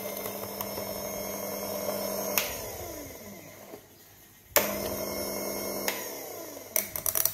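Latina electric coffee grinder grinding beans on a coarse setting: its motor hums steadily, is switched off with a click about two and a half seconds in and winds down. About four and a half seconds in it is switched on again for a short burst and winds down, followed near the end by a quick rattle of clicks.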